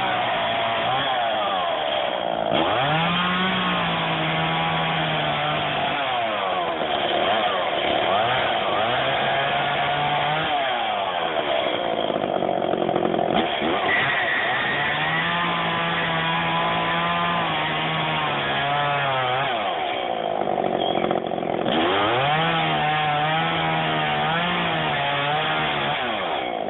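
Chainsaw running throughout while trimming wood. Its engine note swoops down and back up several times as the cut and throttle change.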